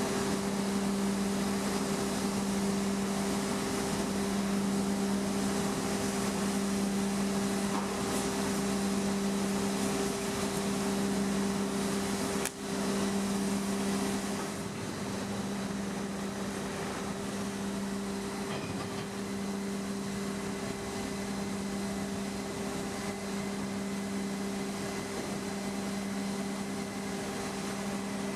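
Steady drone of shipyard machinery with an even hiss over it, a little quieter from about halfway through.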